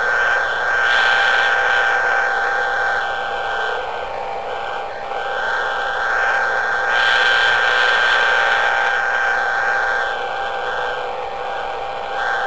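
Radio receiver hiss said to be Jupiter's radio emission, swelling and fading in slow waves a few seconds long. These swells are the variations in Jupiter's radio noise. A steady high whistle runs through the hiss.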